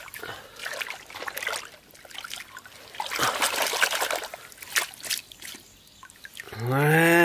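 Plastic toy vehicles swished by hand through shallow muddy water: splashing and trickling in spells. Near the end a man's long, drawn-out exclamation rises and then falls in pitch.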